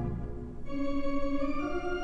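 Organ music with slow, held notes: a low chord fades away, new sustained notes come in under a second in, and a higher note joins near the end.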